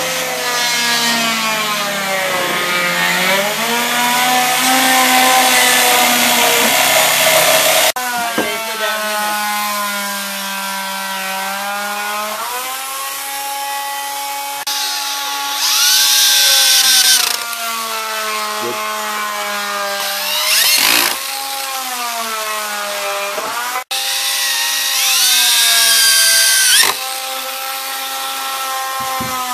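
Electric power tools working wood: a motor whine that sags and recovers in pitch as the tool takes the load, with harsher cutting noise in a few stretches. The sound changes abruptly twice.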